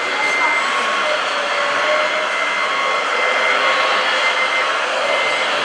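Steady whirring of small electric motors and hydraulic pumps on RC model construction machines, with thin high whines that come and go.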